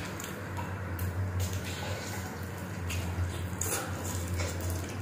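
Close-miked wet chewing and lip-smacking while eating braised chicken adobo off the bone, with several moist smacks over a steady low hum.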